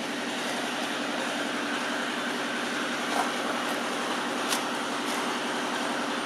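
A steady droning hum over a hiss, like a motor or distant traffic, with two faint clicks about three and four and a half seconds in.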